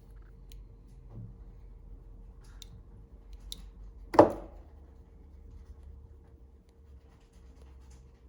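Small handling clicks from metal jewelry pliers working a silver earring pin, with one loud, sharp clack about four seconds in. A faint steady hum runs underneath.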